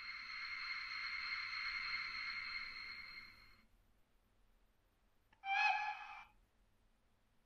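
ZIMO MX645R sound decoder in a Roco H0 DB class 111 electric locomotive model, playing the stationary locomotive's sounds through its small speaker. A steady hiss with a thin whine swells and fades out over about four seconds. Near the end comes a short pitched toot of about a second, the loudest sound.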